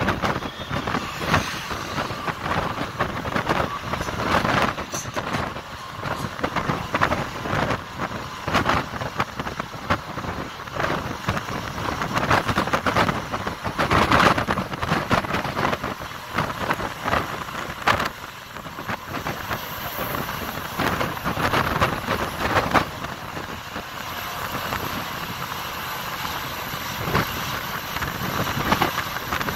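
A bus running at highway speed, heard from inside the cabin: steady engine and road noise with many irregular rattles and knocks.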